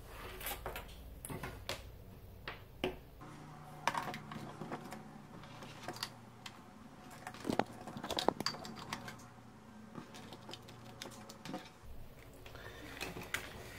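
Irregular light clicks and taps of hard objects being handled and set down on a repair bench, over a faint low hum.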